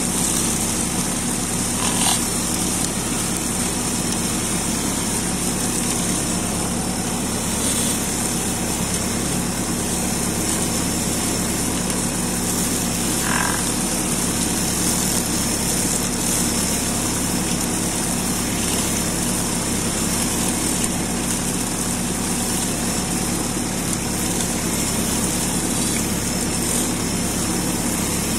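Tractor engine running steadily while it drives a hydraulic inter-row weeder working along an orchard row.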